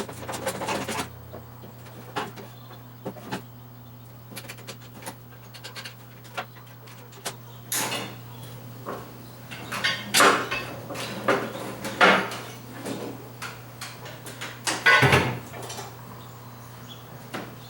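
Irregular knocks and clattering, the loudest about ten, twelve and fifteen seconds in, over a steady low hum.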